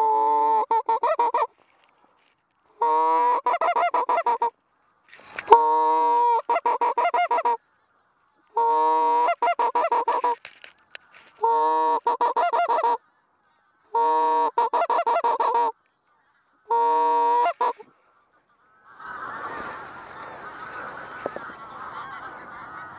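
Greylag goose calls: seven evenly spaced bursts of rapid honking, each lasting about a second and a half, with silence between them. About 19 seconds in, the bursts stop and a softer, continuous rough sound begins.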